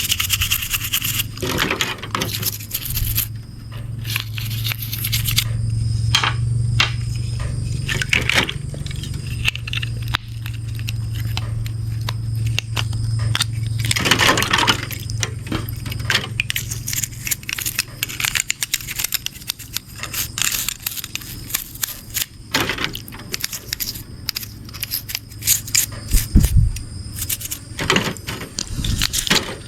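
Hands scraping and scrubbing a mud-caked RC car, with many short clicks and clinks of small hard parts. A low steady hum runs under the first half and stops around the middle.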